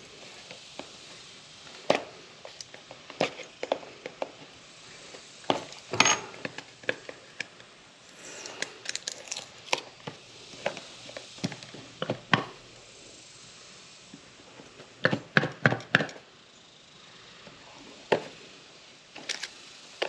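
Hands handling a small cardboard earbud box, trying to get it open: scattered sharp taps, clicks and scrapes of fingers on the packaging, with a quick run of taps about fifteen seconds in.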